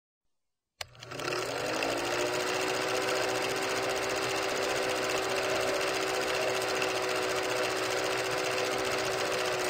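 Old film projector sound effect: a click about a second in, then the projector motor spinning up with a rising hum and settling into a steady, fast rattling whir.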